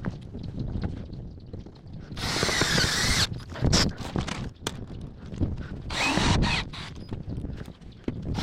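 Power drill running in two short bursts, about two seconds in and again about six seconds in, with clicks and knocks of handling in between.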